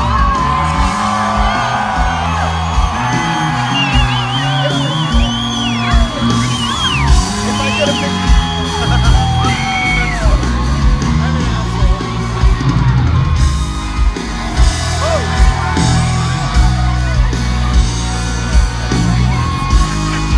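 Country band playing live, heard from within the crowd, with a steady kick-drum beat and bass under the music and people yelling and whooping over it.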